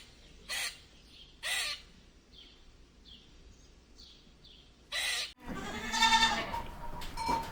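Animal calls: a few short harsh noisy bursts with faint high chirps between them, then, after an abrupt cut about five seconds in, a louder drawn-out pitched call.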